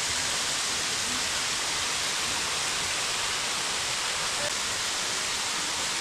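Kurşunlu Waterfall falling from a cliff into its pool: a steady, even rush of water.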